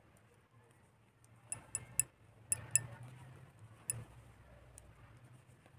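Knitting needles clicking lightly against each other as stitches are worked: a scattering of short, sharp ticks, about seven of them from a second and a half in, over a faint rustle of yarn and handling.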